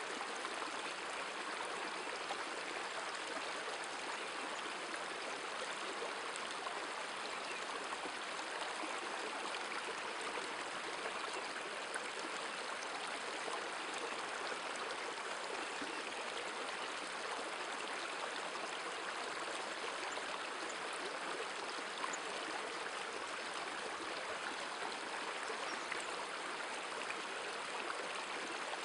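River water rushing steadily over a shallow, stony riffle.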